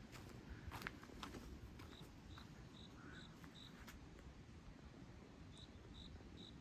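Faint insect chirping: short, high chirps about two and a half a second, in a run of five and, near the end, a run of four. A few faint clicks in the first second or so.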